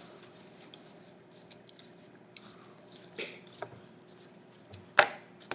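Foil wrapper of a Magic: The Gathering booster pack crinkling as it is handled and opened: soft scattered crinkles and clicks, then one sharp, loud crackle about five seconds in.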